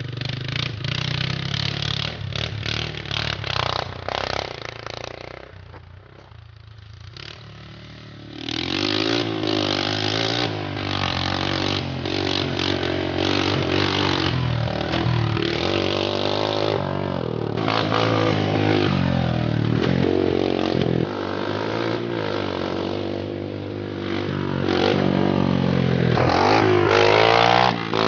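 Small ATV engine revving and running under load as the machine is ridden, the pitch rising and falling repeatedly. It drops off briefly about six seconds in, then revs hard again.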